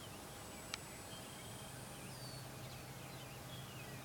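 Quiet evening outdoor ambience with faint scattered bird chirps over a steady low hum, and a single sharp click about three-quarters of a second in.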